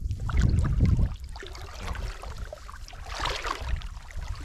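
Water splashing and sloshing, with a low rumble in the first second and brighter splashes about three seconds in.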